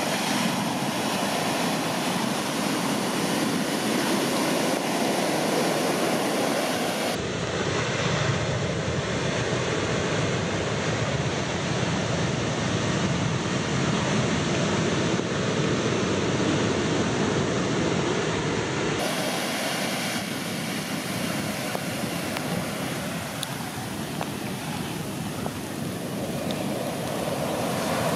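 Continuous roar of large shorebreak waves breaking and washing up the beach. It is deeper and fuller from about seven seconds in until near nineteen seconds.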